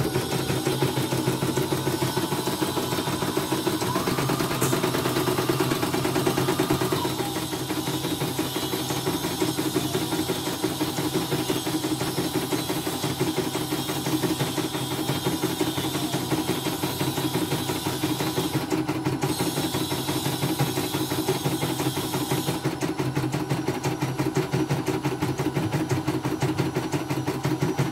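CNY portable embroidery machine stitching a test design, its needle going in a fast, even rhythm. It runs smoothly and steadily, which the technician calls normal after the repair for messy stitches and an erratic frame.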